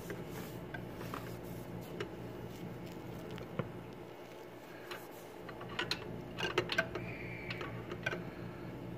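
A socket wrench on a long handle being fitted and worked on the drive-belt tensioner bolt of a Toyota Fortuner V6, making scattered metallic clicks and taps. There is a quick cluster of clicks about six seconds in, over a steady low hum.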